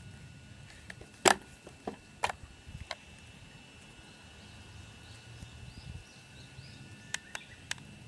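A handful of sharp clicks and taps, the loudest about a second in, a second cluster near the end. Behind them is a faint outdoor background with a thin steady high tone and faint chirps.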